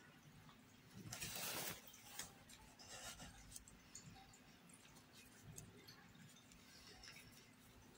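Faint rustling of t-shirt yarn being worked with a crochet hook, with one louder brush lasting about half a second, about a second in, and a few faint ticks.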